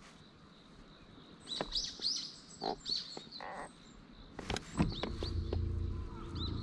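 Small birds chirping in short calls. About four and a half seconds in there are a couple of sharp knocks, followed by a low steady hum with a faint whine above it that runs on to the end.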